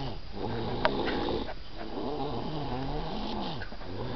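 Snoring in deep sleep: a rough, rasping breath, then slow, wavering pitched snores.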